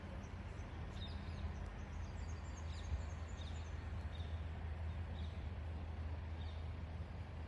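Outdoor ambience: small birds chirping in short high notes every half second or so, over a steady low hum.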